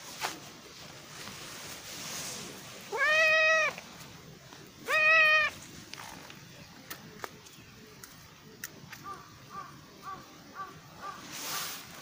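A cat meowing twice, two loud drawn-out meows about a second apart, each rising and then falling away. Near the end comes a run of short, faint chirps.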